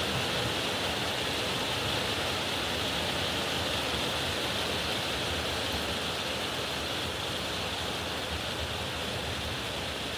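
Heavy rain falling in a steady downpour, an even hiss without thunder.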